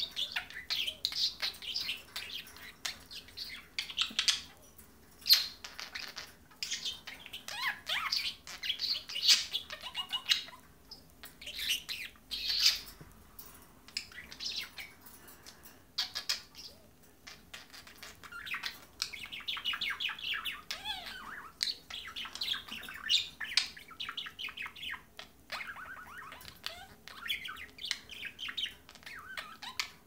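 Pet budgerigars warbling and chattering: a near-continuous run of quick chirps, squeaks and clicks, with a couple of short pauses.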